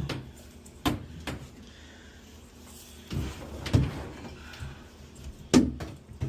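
Scattered clicks and knocks of a shower head being handled and hand-threaded onto the shower arm, with a few sharp taps spread through and the loudest knock near the end.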